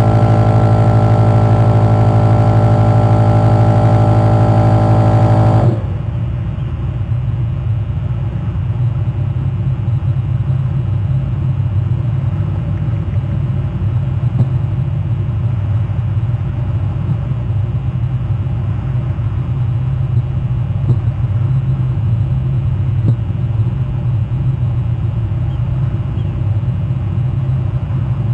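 A steady low hum with many evenly spaced overtones, which about six seconds in abruptly turns duller, leaving a constant low rumble.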